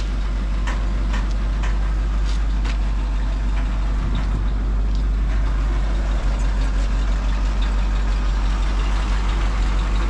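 Dump truck engine running at idle, driving the hydraulic hoist as the bed raises, with a few light clicks in the first three seconds. The hoist stops short of full height, which the owner takes for low hydraulic fluid.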